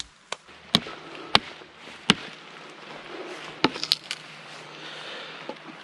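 Swedish-made axe chopping into a green, rain-wet sapling, limbing it: sharp wooden chops, three evenly spaced over the first two seconds, then a quick run of several around four seconds in.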